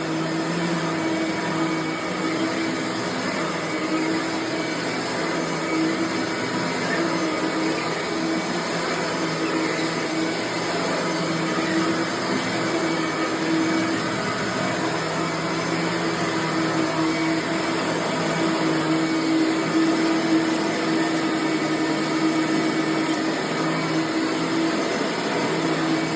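Bissell 3510-9 9-amp upright vacuum cleaner running steadily: a loud motor hum with a high whooshing rush of air.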